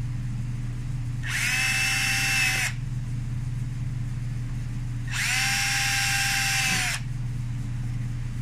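Handheld power drill with a 1/16-inch bit drilling the servo's mounting-screw holes into the plywood servo mount: two bursts of high whine about a second and a half each, one near the start and one about five seconds in, each spinning up and winding down.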